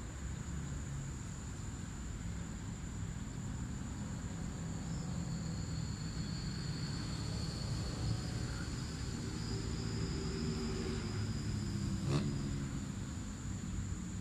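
Outdoor background of a steady, high insect buzz over a low rumble of distant engines or traffic. A single sharp click comes about twelve seconds in.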